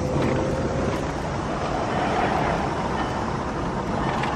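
Car interior noise while driving: a steady low engine hum and tyre and road noise, heard from inside the cabin.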